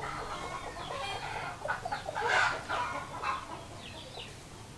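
Chickens clucking, a run of short calls, some falling in pitch, the busiest stretch a little past the middle.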